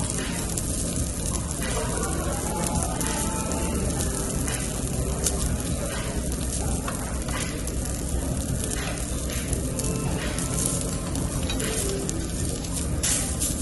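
Beef sizzling on a hot tabletop grill: a steady hiss with frequent small crackles and pops.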